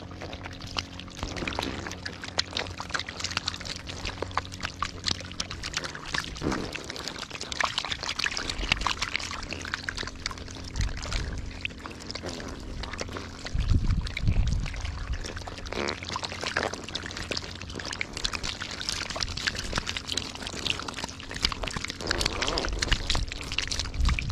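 Many catfish writhing and flopping together in shallow mud and water: a dense, continuous wet crackling and splashing, with a few low thumps about fourteen seconds in and again near the end.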